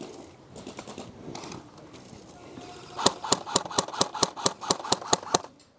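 Airsoft gun firing a quick string of about fourteen shots, roughly six a second, starting about three seconds in after low shuffling noise.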